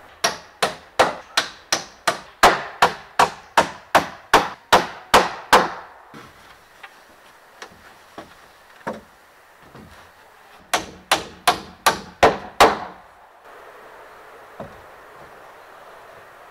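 Hammer blows on a wooden cabin roof frame. A quick run of about a dozen sharp strikes comes at roughly two and a half a second, then a pause with a single knock, then a second run of about half a dozen strikes.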